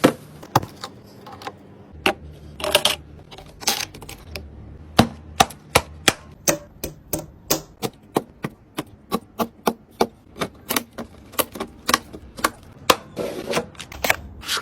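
Sharp plastic and metal clicks and taps of PC parts being handled and snapped together during assembly, an irregular run of two to four a second with a few brief rustles between.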